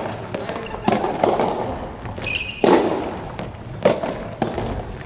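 Soft tennis rally in a sports hall: sharp hits of rackets on the rubber ball about every second, with short high squeaks of shoes on the court floor between them.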